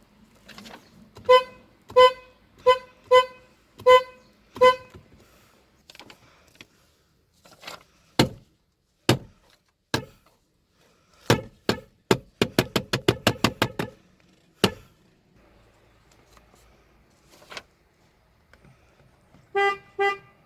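Car horn giving six short toots in quick succession, then a run of single sharp knocks that speed up into a fast string of about a dozen. Near the end come two more short toots, lower in pitch.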